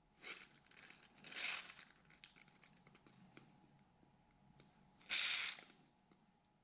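Aerosol lubricant sprayed onto a needle bearing in short bursts: a few brief hisses in the first two seconds and one louder half-second spray about five seconds in, with small clicks of handling between.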